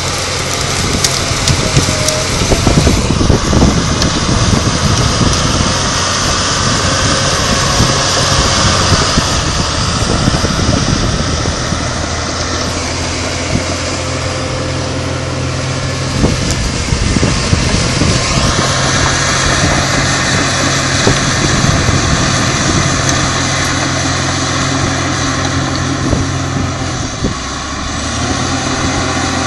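Caterpillar D5M crawler bulldozer's diesel engine running under load as the dozer pushes through brush and small trees, with branches cracking and snapping throughout. The engine note dips briefly near the end.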